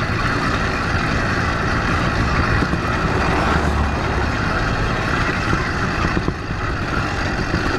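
Motorized bicycle's small engine running steadily while riding, with road and wind noise.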